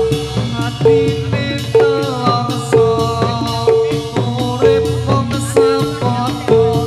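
Loud gamelan accompaniment for jathilan dancing, played through a sound system: metallophone and gong-type notes over steady drumming, with one bright held note recurring about once a second.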